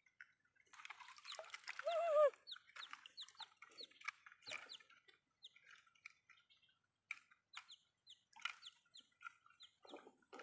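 A young chicken chick peeping over and over in short, high, falling chirps, with a louder wavering call about two seconds in. Light splashing in shallow muddy water.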